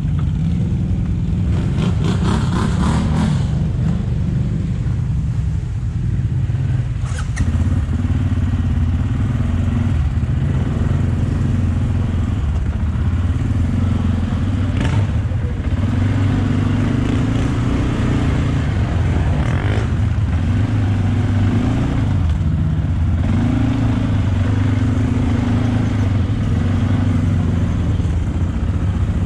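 ATV engine running under throttle through mud, its pitch stepping up and down every second or two, with a few knocks or splashes along the way.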